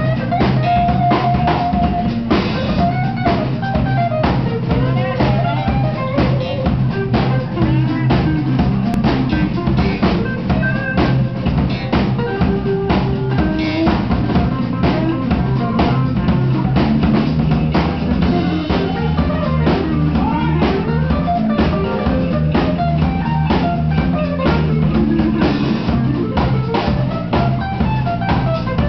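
A small jazz band playing live: a drum kit keeps a steady beat under an electric bass line, while a guitar carries a moving melody on top.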